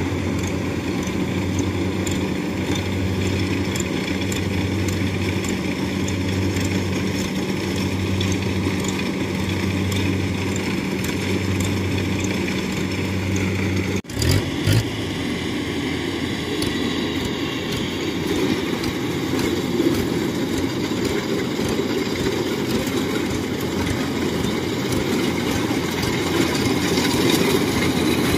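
Crawler rice combine harvesters running at work: a steady diesel engine drone with a slow, even pulsing in the low tone during the first half. It breaks off sharply about halfway through, then another combine runs steadily.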